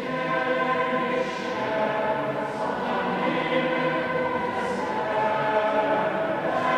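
A church choir of boys and men sings a sustained chordal passage in a large, echoing church, with the s-sounds of the words hissing briefly now and then.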